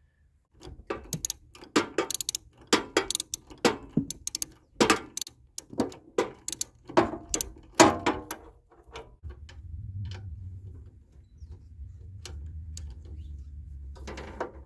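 Ratchet wrench clicking in uneven strokes as it runs down a nylock nut, with a low steady hum coming in about nine seconds in.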